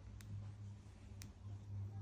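Faint low hum that swells and fades, with two soft clicks about a second apart.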